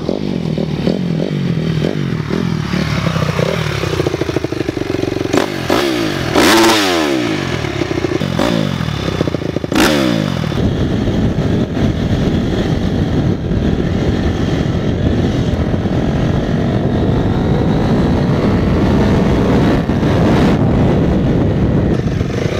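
Dirt bike engine revving up and down as the bike rides towards and past, its pitch dropping as it goes by about six seconds in. Two sharp cracks come near six and ten seconds. After that the engine runs under throttle close up, mixed with rough noise and clatter from riding over rough ground.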